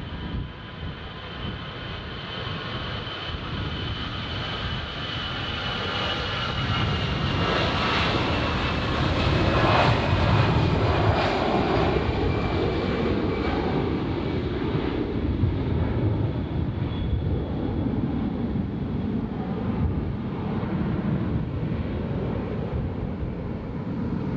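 An airliner's engines at takeoff power as it climbs out past the runway. The noise builds to its loudest about ten seconds in and then slowly fades, with a high whine that drifts slightly down in pitch.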